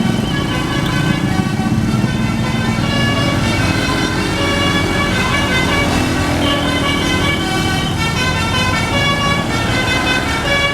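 Bus telolet horn playing a quick melody of short notes that jump from pitch to pitch, over engine and traffic noise.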